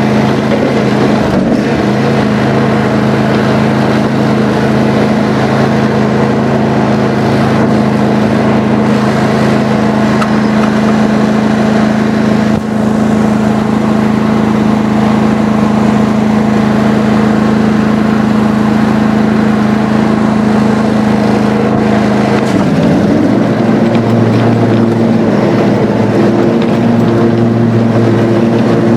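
Riding lawn mower (John Deere lawn tractor) engine running steadily while mowing, with its engine note shifting to a different pitch about three-quarters of the way through.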